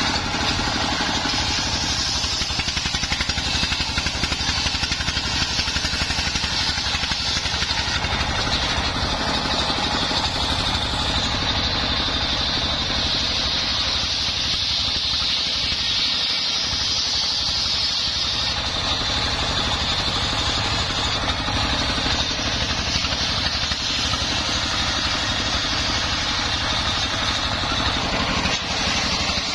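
Homemade circular sawmill: a stationary single-cylinder diesel engine running steadily, belt-driving a large circular saw blade as it rips a mahogany log lengthwise. The cut adds a high hiss over the engine.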